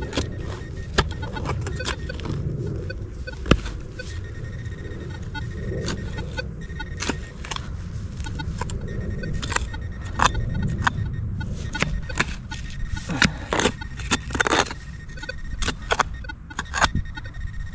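Hand digging and probing in a soil hole: repeated short clicks, knocks and scrapes of the digging tool against dirt and stones, over a low rumble of handling noise, with a faint steady high tone from the detector that comes and goes.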